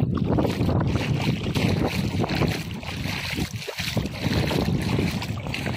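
Wind buffeting the phone's microphone in uneven gusts, over the hiss of shallow river water.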